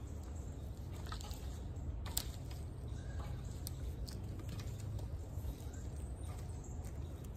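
Garden rake scraping and scratching through loose soil and wood chips in irregular strokes, with scattered sharp clicks, over a steady low rumble.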